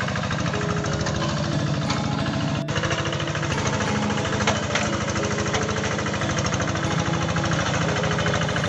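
Single-cylinder diesel engine of a two-wheel hand tractor running steadily under load as it pulls a plough through dry ground, with a rapid, even chugging beat.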